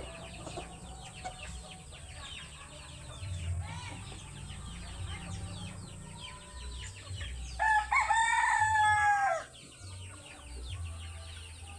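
Rooster crowing once, a long call of about two seconds that starts a little after halfway and drops in pitch at its end. Quick high chirps run throughout behind it.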